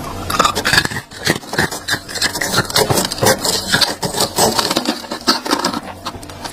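Crunchy freezer frost being scraped: a rapid run of irregular scratching and crunching strokes.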